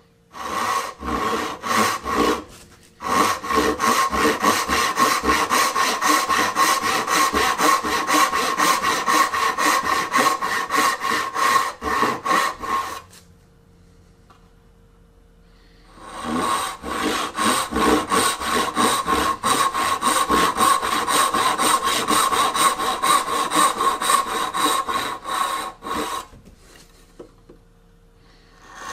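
Dovetail saw cutting the sides of dovetail tails by hand, in runs of quick, even back-and-forth strokes through the wood. The sawing breaks off briefly about two and a half seconds in and for about three seconds near the middle, then goes on with lighter strokes before stopping near the end.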